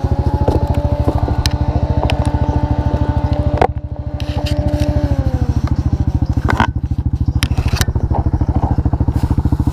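Off-road vehicle engine idling close by, a steady, evenly pulsing low rumble, with a few scattered knocks and clatter over it.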